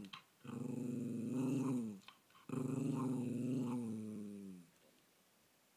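Bolognese dog singing with its muzzle raised: two long, low, growly howls, each dropping in pitch at its end, begging for a treat.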